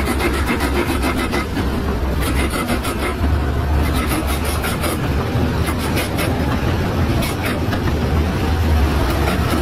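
Diesel engine of a small crawler bulldozer running steadily with a deep rumble, with repeated short clatters over it as the machine works on a flatbed truck's deck.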